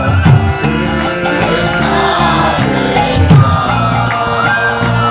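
Kirtan music: a harmonium holding chords under a man's chanted melody, with a mridanga drum beating and small hand cymbals clinking in a steady rhythm.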